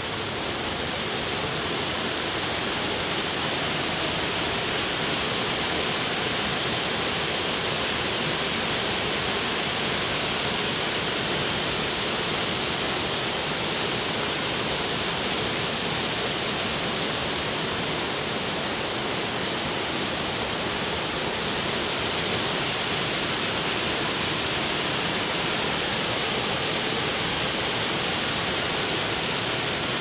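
Waterfall rushing steadily, growing louder near the end. A steady high-pitched whine sits over it, strongest near the start and end.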